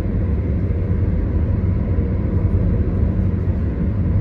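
Steady low rumble of a car driving on the road: tyre and engine noise.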